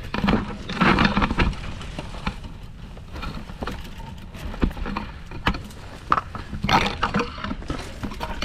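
Heavy breathing of a hiker scrambling up a steep, rocky slope, loudest about a second in and again near seven seconds. Short scrapes and clicks of hands and boots on rock and dry brush run through it.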